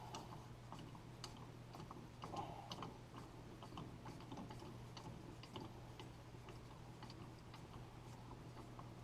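Faint, irregular light clicks and taps of small tools and metal fittings being handled, over a steady low hum.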